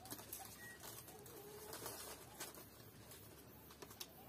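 Quiet crinkling and rustling of a plastic wrapper as small packaged cakes are unwrapped, with faint cooing of a dove behind it.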